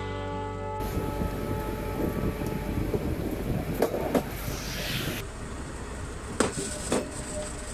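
Plasser & Theurer PLM 07-275 switch tamping machine running on the track: steady rumble of its engine and running gear, with several sharp metallic knocks. Background music cuts off under a second in.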